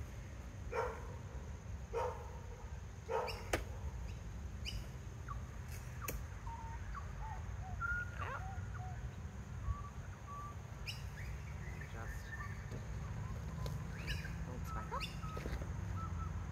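A Radio Flyer EZ Fold wagon's frame being folded by hand, giving a few sharp clicks and knocks. Over a steady low rumble, an animal calls four times at an even pace in the first few seconds, and birds chirp through the middle and later part.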